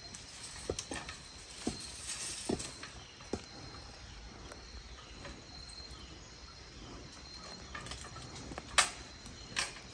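Scattered knocks and clicks of a tree stand and climbing sticks being handled against a tree trunk, the sharpest one near the end. Under them runs a steady high insect chirring.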